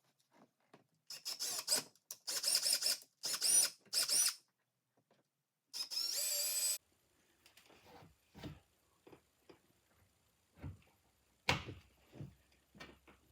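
Power drill with a 5/16-inch bit drilling push-pin holes: the motor whines in four short bursts that speed up and slow down, then runs once more steadily. A few light knocks follow, with one sharper knock near the end.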